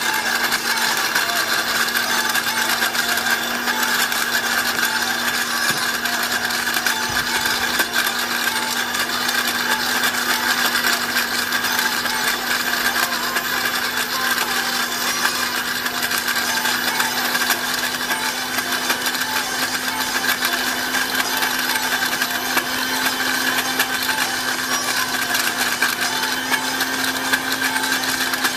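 Countertop electric blender running steadily, chopping lemon peel in a little water into a pulp. Its motor tone creeps slightly higher near the end.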